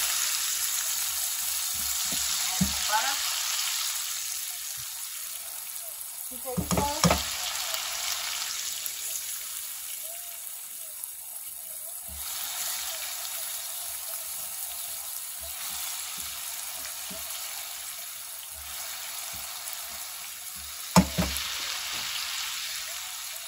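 Bacon-wrapped filet mignons, onions and garlic sizzling steadily in butter in a frying pan, with a spatula stirring and scraping against the pan a few times; a sharper knock of the spatula on the pan near the end is the loudest sound.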